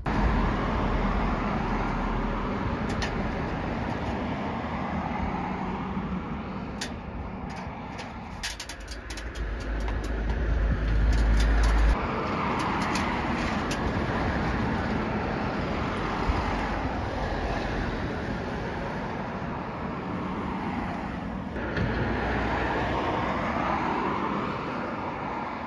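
Road traffic going by: a steady wash of car and engine noise, with vehicles swelling past now and then. A short run of sharp clicks comes about seven to ten seconds in.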